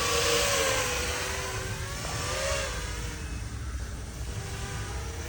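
Seven-inch FPV quadcopter (Chimera 7 Pro V2) in flight: the propeller whine wavers up and down in pitch as the throttle changes, over a low wind rumble.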